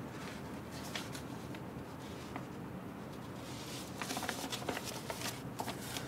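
Sheets of printed paper rustling and being handled, with scattered short clicks that come thicker in the second half, over a low steady room hum.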